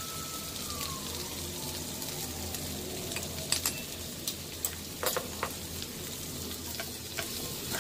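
Boiled potato slices frying gently in butter in a non-stick pan, a steady soft sizzle. A few light knocks come about halfway through.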